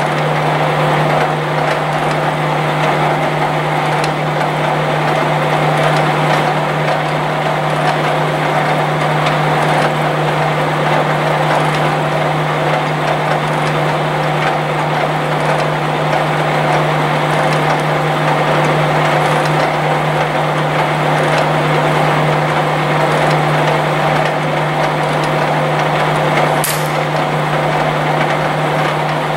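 Blanchard Model 11 16-inch rotary surface grinder running under power: a steady low hum with a dense mechanical whir. A short high hiss comes near the end.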